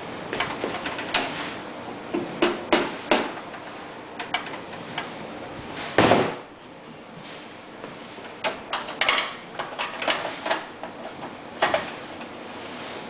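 Scattered clicks and knocks of metal parts and tools being handled while the stator housing is fitted to a generator, in small clusters, with one louder thump about six seconds in.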